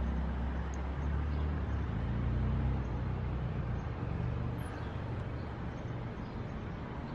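Steady low rumble of outdoor vehicle noise, with no distinct events.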